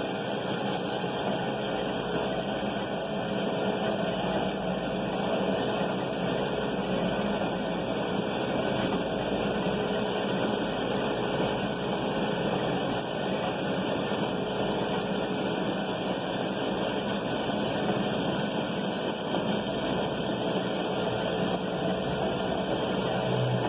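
Homemade kite-line winding machine running steadily: a small electric motor turns a belt-driven can spool, winding kite line onto it with an even mechanical hum.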